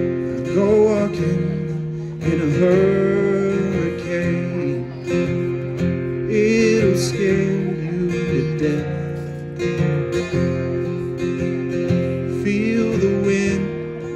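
Acoustic guitar strummed live, with a man singing over the chords in several phrases.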